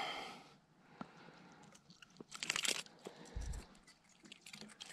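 Hands unhooking a bass from a plastic rat lure: scattered light clicks and rustles of the hooks and hard lure body, busiest about two and a half seconds in, with a soft low bump about a second later.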